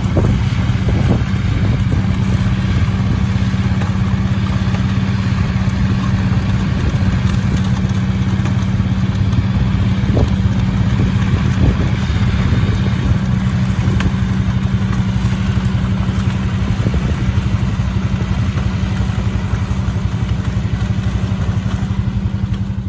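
A John Deere tractor's diesel engine running steadily under load as it pulls a muck spreader, with the spreader's rear beaters throwing muck. A few light clatters come through over the engine.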